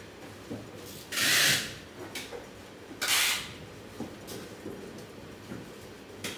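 Two short bursts of hiss, the first about a second in and the second about two seconds later, over a low steady background noise.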